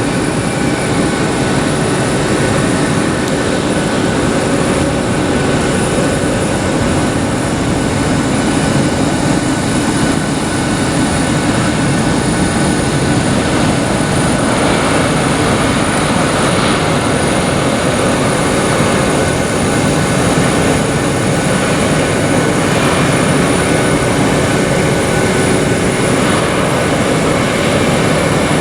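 Jet airliner engines running: a loud, steady rush with several steady whining tones over it.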